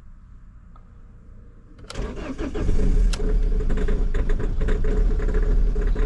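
Ford Focus 1.8 TDCi four-cylinder turbodiesel cranking about two seconds in and catching within a second, then running loud with an uneven diesel clatter. This is a cold start at about minus six degrees after the car has stood unused for a week, heard from inside the cabin.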